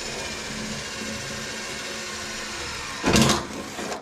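Power drill boring a hole through an aluminum boat hull, the motor running steadily at speed. The drill gets louder and rougher for a moment about three seconds in, then stops.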